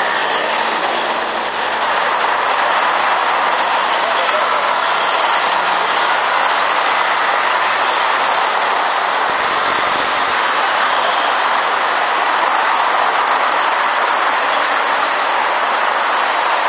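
Busy city street ambience: a steady wash of many voices talking at once mixed with traffic noise.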